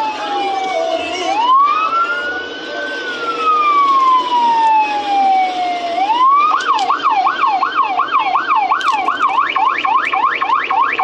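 Emergency-vehicle siren sounding a slow wail that falls and rises, then switching a little past halfway to a fast yelp of about three rises and falls a second.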